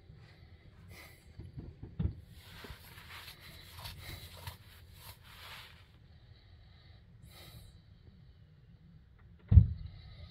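Distant fireworks: two low booms, one about two seconds in and a louder one near the end, with scattered crackling in between.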